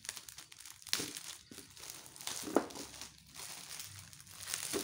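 Clear plastic packaging crinkling and crackling as hands pull it open, with a few sharp crackles among the irregular rustle.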